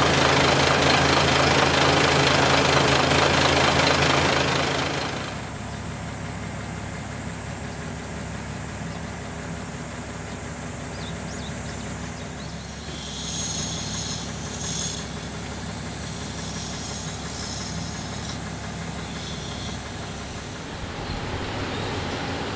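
Diesel railcar engines of a KiHa 35-series train idling at a platform: loud and steady close beside the car, then quieter and more distant after about five seconds. In the second half a high buzzing comes and goes over it.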